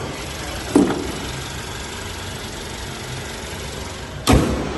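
Mercedes-Benz C180 engine idling steadily under the open bonnet, with a thud about a second in and a louder bang near the end as the bonnet is swung shut.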